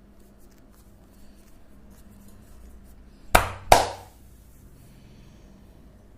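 Two sharp slaps of the hands, about a third of a second apart, from a barber's massage.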